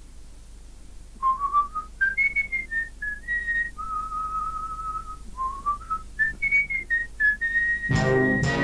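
Someone whistling a tune: a single clear line of short notes with a couple of long held notes. Near the end, backing music comes in under the last held note.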